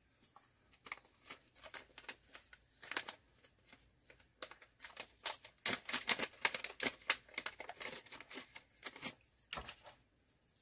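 Plastic packaging bag crinkling and tearing as it is opened by hand: a run of quick crackles and rustles, busiest in the second half.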